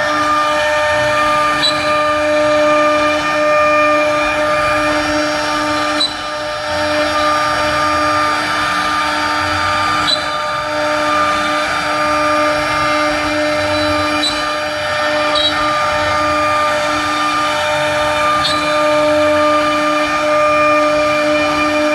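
IR2030 CNC router spindle running with a steady whine while its 12 mm ball-nose bit carves relief into pine, the bit chewing through the wood with a constant rasp. A few sharp ticks stand out, about once every few seconds.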